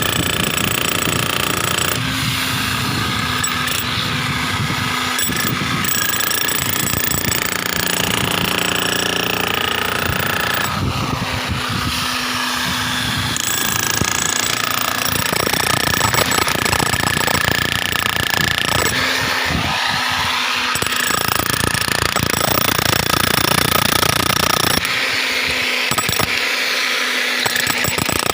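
Hammer drill boring holes in a concrete slab, running continuously with a rapid hammering rattle.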